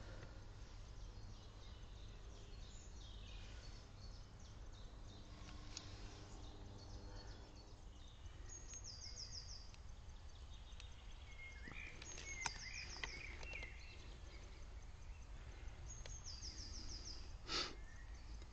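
Quiet outdoor background with a low steady hum and high chirping calls repeated three times in short runs. A sharp click comes about twelve seconds in and a short, louder thud near the end.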